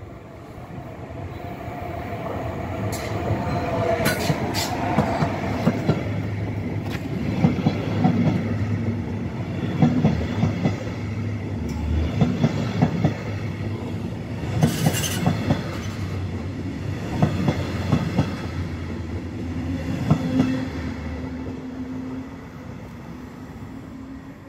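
Metronom double-deck passenger train, hauled by a class 146 electric locomotive, running past close by. A whine falls in pitch as the locomotive comes near, then the wheels knock over the rail joints in a steady rhythm as the coaches pass, and the sound fades near the end.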